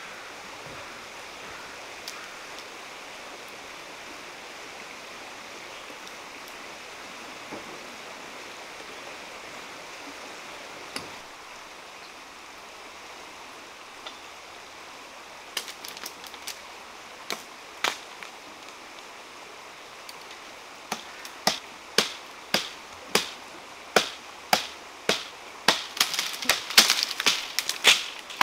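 Sharp woody snaps, a few scattered at first, then about two a second in the last third, over a steady hiss: wood breaking in a flamboyant tree.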